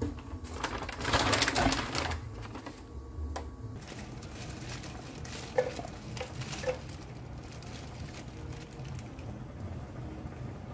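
Kitchen handling sounds. Hands press raw shrimp on a paper towel in a loud rustling, squishing burst early on. A few sharp clicks follow as tongs stir spaghetti in the pot, over a low bubbling rumble from the pasta water.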